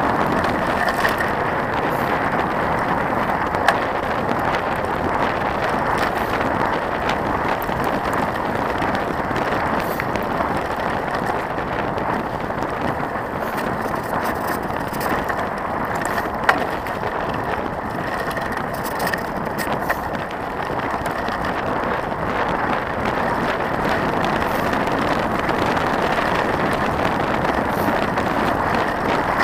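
Trek 4900 mountain bike rolling over a gravel forest road: a steady crunch of tyres on gravel and the bike's rattle, picked up by a camera mounted on the bike. Two sharp knocks come about four seconds in and again about sixteen seconds in.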